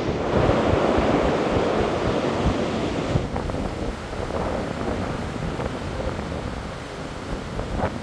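Rough storm surf breaking and churning, with strong gale-force wind buffeting the microphone. The rush is loudest for the first three seconds, then changes abruptly and drops a little.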